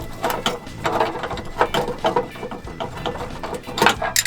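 Hand ratchet wrench clicking in quick, irregular strokes as it works a car seat bolt loose.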